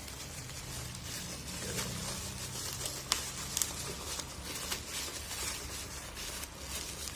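Packaging being handled and worked open: rustling and crinkling, with scattered small clicks and taps.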